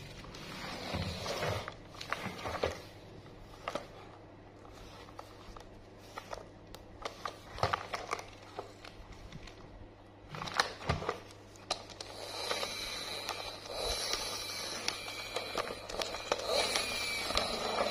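A plastic toy steam locomotive handled by gloved hands: scattered clicks, taps and scrapes of plastic, turning into busier, more continuous rustling and rubbing from about twelve seconds in.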